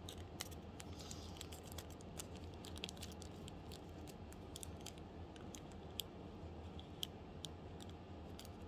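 Light, scattered clicks and ticks from handling a small plastic bag of glass leaf beads with long acrylic nails: the beads shifting in the bag and nails tapping the plastic, with a couple of sharper clicks about six and seven seconds in. A faint steady low hum runs underneath.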